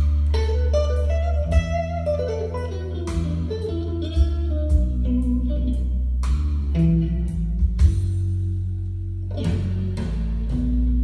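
A vinyl record playing on a MAG-LEV ML1 levitating turntable, heard through a pair of hi-fi loudspeakers: blues-style music with a plucked guitar melody over a sustained bass line.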